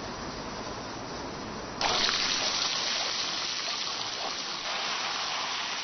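Tofu frying in hot oil in a wok: a softer hiss, then about two seconds in the sizzle jumps suddenly louder and carries on steadily.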